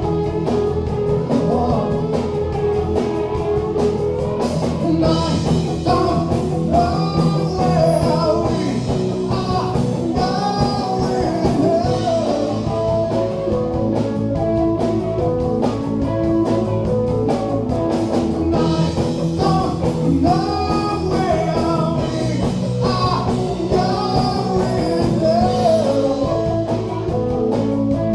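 Live rock band playing: electric guitars over a drum kit, with a lead line that bends and slides in pitch over steady cymbals.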